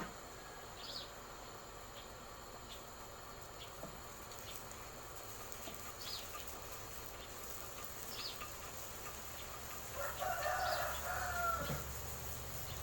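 A rooster crows once near the end, a single call of under two seconds that falls away at its close. Underneath is a faint steady insect hum, with a few short, high bird chirps earlier on.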